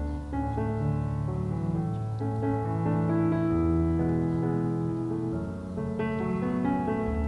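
Soft, slow keyboard music, with sustained piano-like chords changing every second or so.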